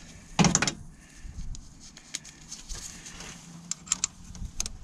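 Hand tools clicking and clinking on metal as an 8 mm bolt by the timing chain is undone, in scattered, irregular clicks with one louder clunk about half a second in.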